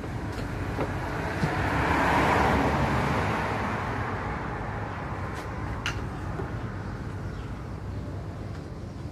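Steady low traffic rumble, with a passing vehicle swelling up about two seconds in and fading away over the next couple of seconds; a light click near the middle.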